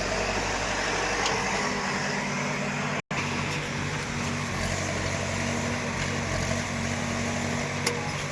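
Heavy earthmoving machine's engine running steadily under load. The sound cuts out completely for an instant about three seconds in.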